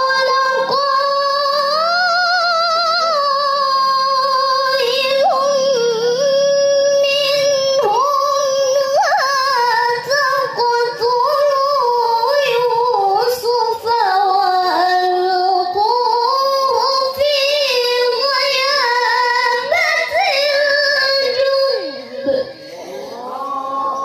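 A teenage girl reciting the Quran through a microphone in the melodic tilawah style. She holds long, ornamented notes with a wavering pitch, breaks off briefly a few times, and lets the phrase fade out near the end.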